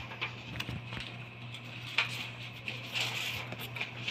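Handling noise from a camera carried low while walking: irregular soft taps and rustles over a steady low hum.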